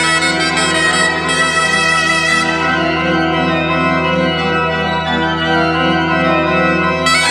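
Church pipe organ playing a Breton gavotte pourlet over a held bass note. The bombarde's bright reedy line drops out about two and a half seconds in, leaving the organ alone, and comes back in just before the end.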